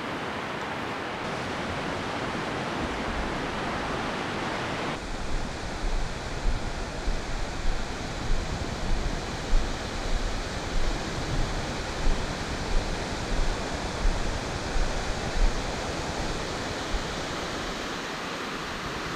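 Rushing rapids of the Piteå River: a steady roar of white water. After a cut about five seconds in, regular low thumps come about one and a half times a second under the roar.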